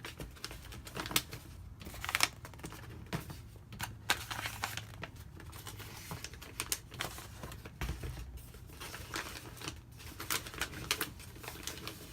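Small items being handled and moved around on a table: irregular rustling and crinkling with light taps and clicks, like folded grab bags being picked up and set aside.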